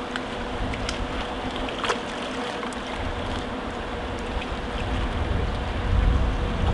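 Waves washing against concrete steps, water sloshing with small splashes, swelling into a bigger surge near the end.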